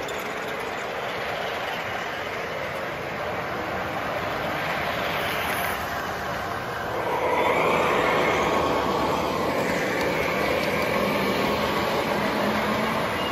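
Toy electric trains rolling past on the layout track, a steady rumble of wheels and motors. It grows louder about seven seconds in as a train passes closer.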